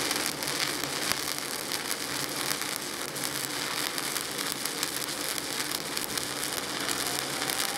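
Stick welding (SMAW) arc on a 7018 electrode burning steadily through a fill pass, a continuous dense crackle.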